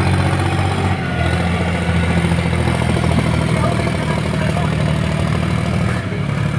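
Diesel engine of a John Deere tractor running under load as it pulls a trailer heaped with soil: a steady low engine note that rises about a second in and drops back near the end.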